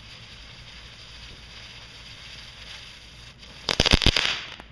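Small consumer firework going off: a faint steady hiss, then a quick burst of sharp cracks and pops near the end.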